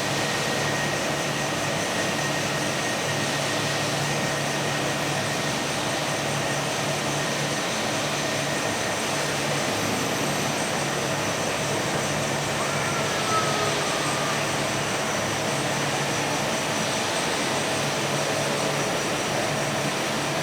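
Steady machinery noise of an automated machining cell: a constant hum with several steady whining tones over a broad mechanical hiss, and a short faint whine about 13 seconds in.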